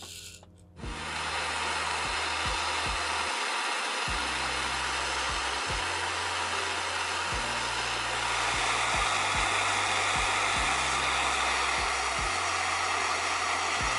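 Jewelry soldering torch flame hissing steadily while it heats a silver bezel for soldering; the hiss starts abruptly about a second in and gets a little louder about halfway through.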